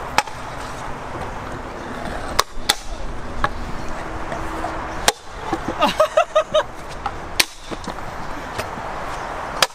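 Stunt scooter rolling over a concrete skatepark: a steady wheel rumble broken by several sharp clacks as the deck and wheels hit edges and land. Just after the middle comes a quick run of short high-pitched sounds.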